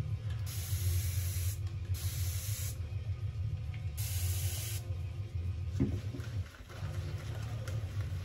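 Three short hissing bursts of water being added to shaving lather, each about a second long, over a steady low hum.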